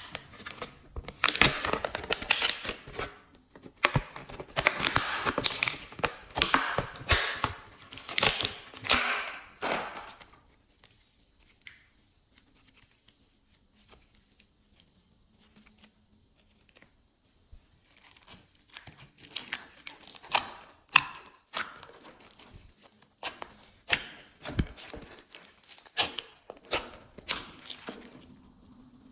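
Glossy slime being squished and worked by hand, crackling and popping. The crackle is dense at first, stops for several seconds about ten seconds in, then returns as sparser pops and clicks.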